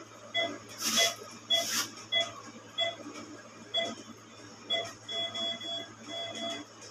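Veterinary patient monitor beeping with the dog's heartbeat during anaesthesia: short beeps at uneven spacing of roughly one a second, changing in the last two seconds to a run of longer, closely spaced beeps. A steady low hum runs underneath, and a couple of brief rustling noises from handling come about a second in.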